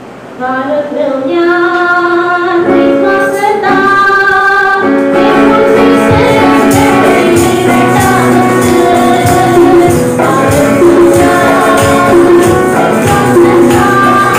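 A woman singing a worship song into a microphone; about five seconds in a steady percussion beat joins the melody and carries on under her voice.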